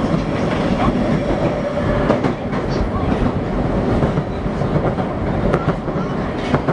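An Osaka Metro 21 series subway train running at speed, heard from inside the car: a steady rumble of wheels and running gear, a faint steady hum, and a few sharp rail-joint clicks.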